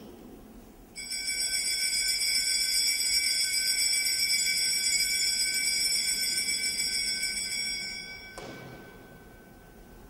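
Altar bells shaken continuously for about seven seconds, a bright jingling ring that starts sharply about a second in and stops abruptly, marking the elevation of the consecrated host. A soft thump follows just after they stop.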